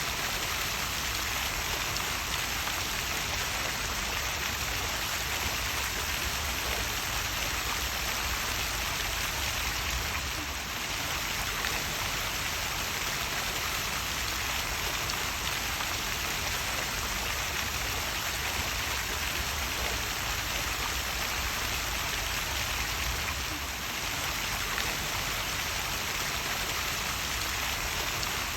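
Small waterfall: falling water splashing in a steady, even rush, dipping slightly softer twice for a moment.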